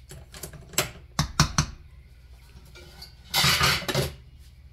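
Metal ladle clinking against the sides of a large stainless steel stockpot while stirring sorrel: four quick clicks in the first second and a half, then a louder, rough noise lasting under a second near the end.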